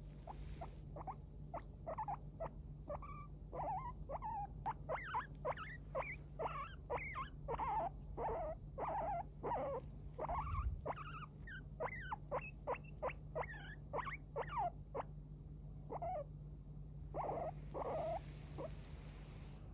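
Guinea pig wheeking: a long run of short, squeaky whistle-like calls, about two or three a second, with a short pause near the end before a last few calls.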